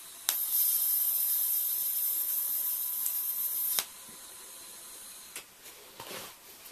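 TIG welding arc tacking a small stainless steel nipple onto thin-wall stainless tube: it strikes with a click about a third of a second in, hisses steadily for about three and a half seconds, then cuts off sharply. A few light knocks follow near the end.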